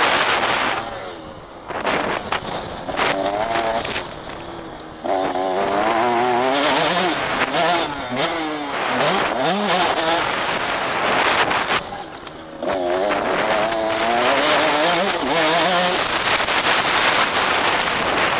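KTM 85 SX two-stroke single-cylinder motocross engine revving hard under load, its pitch climbing and falling through the gears, with the throttle chopped briefly three times before it picks up again. Wind rushes over the onboard camera's microphone throughout.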